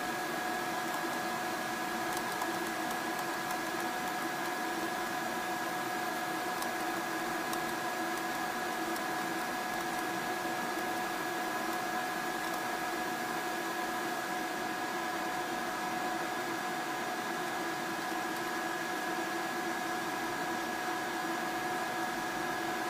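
Steady electrical hum from a running 24 V power inverter, several fixed tones held over a hiss, unchanging throughout.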